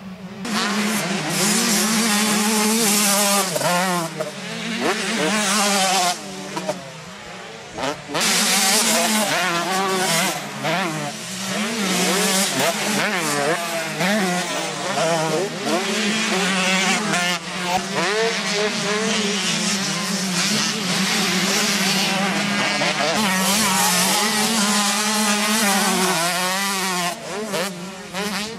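Motocross bikes revving hard around a dirt track, several engines overlapping, their pitch repeatedly climbing as they accelerate and dropping on gear changes and off the throttle.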